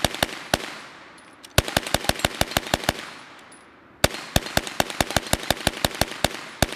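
Tippmann TG-900 hand-cranked 9mm Gatling gun firing in rapid bursts of about seven or eight shots a second, with the rate set by the turning crank. There are three bursts, with pauses of about a second between them.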